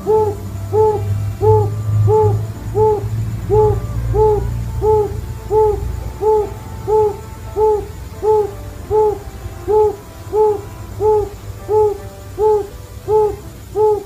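Quail calling: a long, even series of short, low hooting notes, about one and a half a second, each note rising and falling slightly in pitch.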